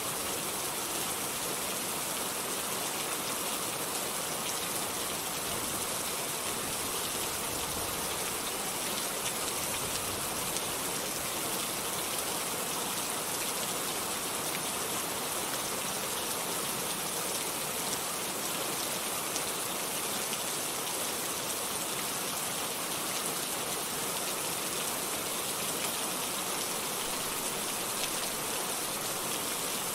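Heavy rain falling, a steady dense hiss without letup.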